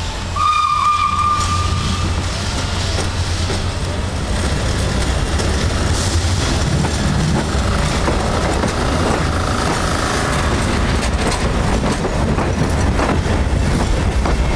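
Steam-hauled passenger coaches rolling past close by, their wheels rumbling steadily and clacking over the rail joints. A short high-pitched tone sounds about half a second in and lasts a second and a half.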